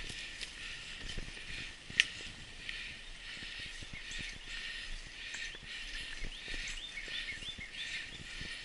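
Mountain bike rolling over a dirt singletrack: steady tyre noise with small rattles and knocks, and one sharp knock about two seconds in. Birds chirp several times in quick succession in the second half.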